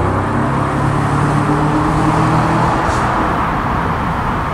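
DB Class 66 diesel-electric locomotive, a two-stroke V12, approaching slowly with loaded spoil wagons. A steady low engine drone fades out over the first second or two, under a constant rumble of wheels on rail.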